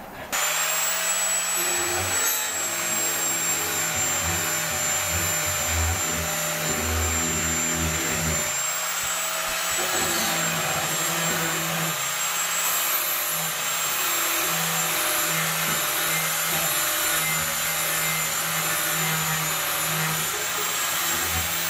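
Stanley angle grinder switching on suddenly just after the start, then running at full speed with a steady high whine while its disc grinds steel, the load swelling and easing as it is pressed onto the work.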